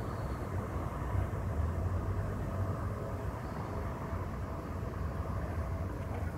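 Steady low outdoor rumble of city ambience, with no distinct events.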